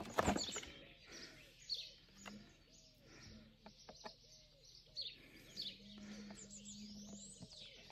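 Birds chirping faintly, with soft clicks and scraping as a knife blade is worked into the side of a plastic pool chlorine floater.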